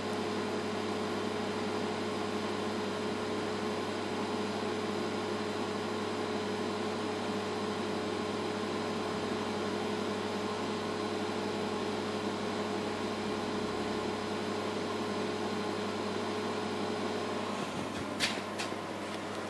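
ECRM Stingray 52 imagesetter running steadily while it outputs a job to film, a constant hum with a steady whine. The whine stops near the end, followed by a couple of sharp clicks.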